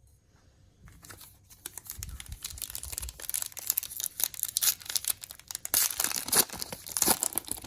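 A trading-card pack's wrapper being torn open and crinkled by hand, starting about a second in and growing louder and busier through the rest.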